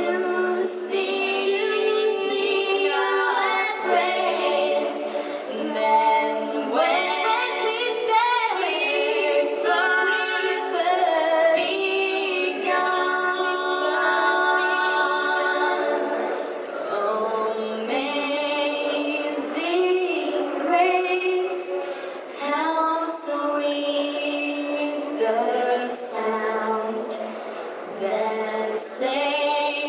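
Group of young girls singing in harmony, with long held notes and sliding pitches.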